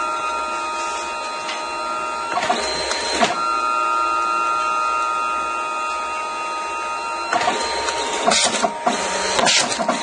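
Mitsubishi CP-K60DW dye-sublimation photo printer running through a 6x8 print: a steady motor whine that breaks into clicking and shuffling about two and a half seconds in, and again after about seven seconds, with sharper clicks near the end as the print is fed out.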